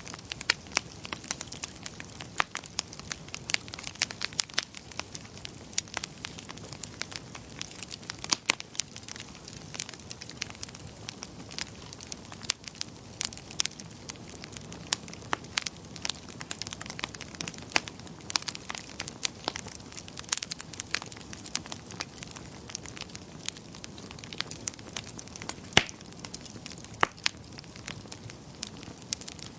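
Wood fire crackling in a fireplace: irregular sharp pops and snaps over a steady soft hiss.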